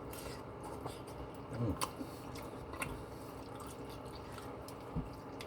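Wet mouth sounds of someone chewing poutine (fries, gravy and cheese curds), with a few sharp smacking clicks about two, three and five seconds in.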